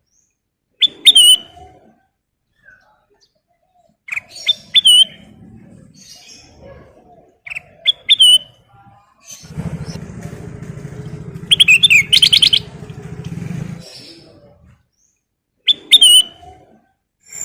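Kutilang emas bulbul singing: short, loud, whistled phrases with a rising hook, repeated every few seconds, with a quicker run of notes about two-thirds of the way through. A low steady hum sits underneath for about four seconds in the middle.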